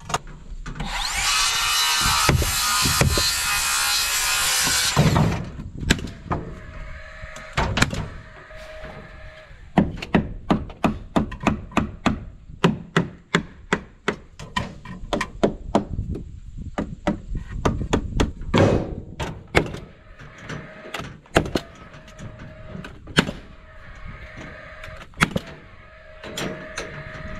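Scrap wood blocks being fitted and fastened between wooden roof purlins as soffit backing: a long run of sharp wooden knocks and clacks, densest in the middle. A loud rushing hiss lasts about four seconds near the start.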